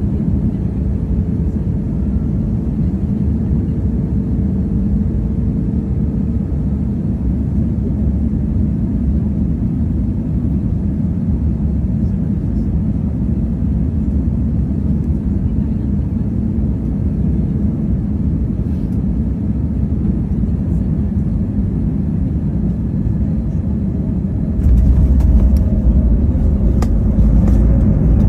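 Steady low rumble of an airliner's engines and airflow, heard from inside the cabin on approach. Near the end it suddenly gets louder and deeper, with rattling, as the plane touches down on the runway.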